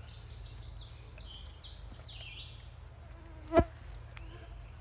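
A flying insect buzzing close by, its pitch wandering as it moves about, with one brief sharp sound about three and a half seconds in.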